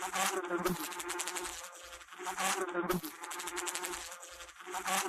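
Bee buzzing, the buzz swelling and fading several times.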